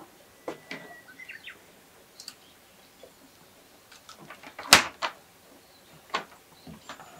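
A scatter of short clicks and knocks, the loudest one a little past the middle, with a few faint high bird chirps.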